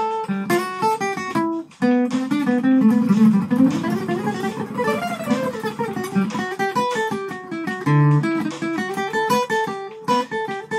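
Acoustic guitar playing an instrumental break, a fast run of picked notes and chords, with a strong low bass note about eight seconds in.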